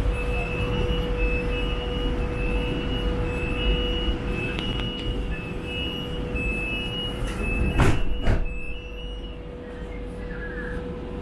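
Metro train standing with its doors open: the door warning beeps in two alternating tones about twice a second, over a steady hum and low rumble. About eight seconds in, the sliding doors shut with two sharp thuds.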